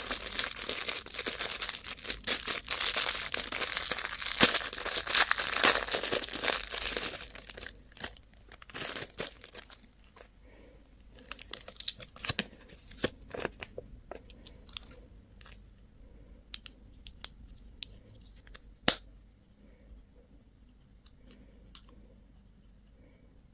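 Plastic candy wrapper being crinkled and torn open in a dense, continuous crackle for about the first third. This is followed by scattered light clicks and taps of handling, with one sharp click later on.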